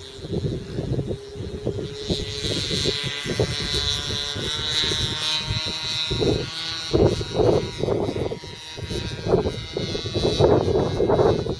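An autogyro's engine and propeller running with a high-pitched whine, which comes in about two seconds in and holds steady as the aircraft climbs away. Gusts of wind buffet the microphone, heaviest in the second half.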